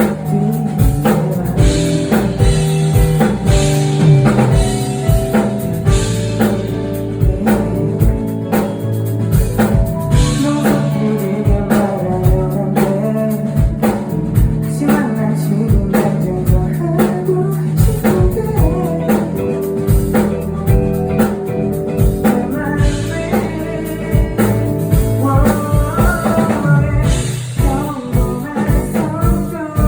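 A live band performing a song at a concert: regular drum-kit beats and guitar under a sung vocal line.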